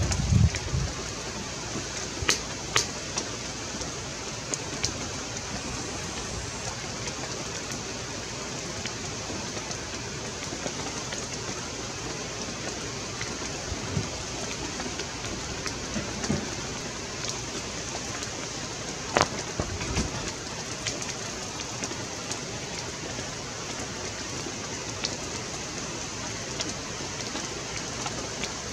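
Steady spring rain falling, a constant hiss broken by scattered sharper drop taps, a few louder ones near the start and about two-thirds of the way through.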